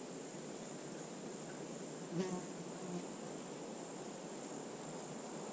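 Insects trilling steadily, one continuous high-pitched buzz, with a short faint sound about two seconds in.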